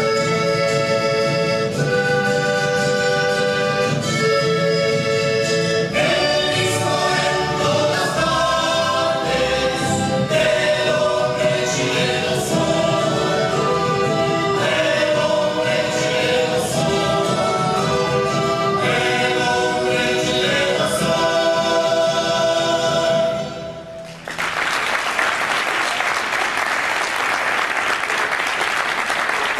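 Music with a choir singing long held chords over instrumental accompaniment, stopping about 24 seconds in; after a short dip, audience applause follows to the end.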